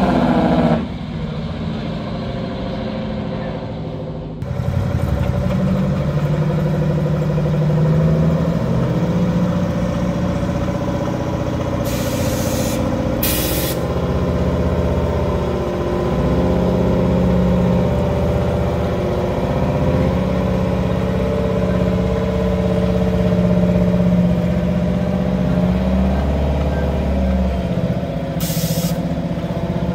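Heavy diesel semi truck engine idling steadily, with short hisses of released air from the truck's air system: two about twelve and thirteen seconds in, and one more near the end.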